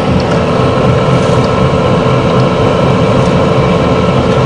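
A 400-model wood pellet mill running steadily while producing pellets: a loud, even mechanical drone with a steady hum over a low rumble, and faint ticks now and then as pellets drop into the basin.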